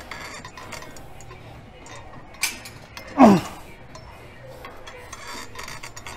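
Grunt of effort on a heavy chest fly rep, loud and falling in pitch, about three seconds in. It comes just after a sharp clink from the weight machine, over a light clinking of metal.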